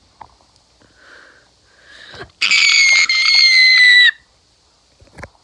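A child's high-pitched shriek, held for about a second and a half and falling slightly in pitch, starting about two and a half seconds in and cutting off sharply.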